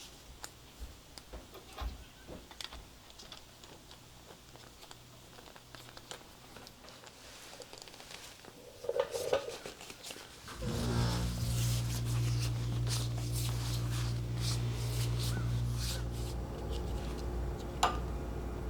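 Small clicks and taps of hands handling torch wiring and parts. About ten seconds in, an electric machine switches on and hums steadily, with more clicking and tapping over the hum.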